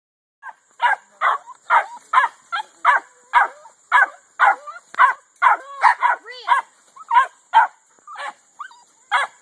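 Dog barking over and over, about two barks a second, with a few whining yelps mixed in around the middle.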